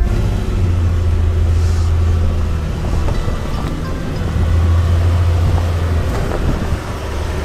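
Honda Pilot TrailSport's 3.5-litre V6 engine working under throttle as the SUV crawls over rocks and loose dirt, its low drone swelling twice, with tyres grinding over gravel.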